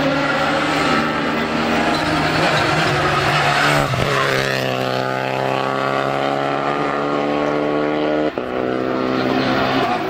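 Renault Clio race car's engine running hard at steady high revs. The note breaks briefly about four seconds in and again past eight seconds.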